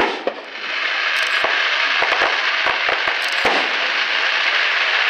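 An aerial firework shell bursts with a sudden bang, followed by dense, steady crackling from its gold crackling stars, with a few sharper pops between about two and three and a half seconds in.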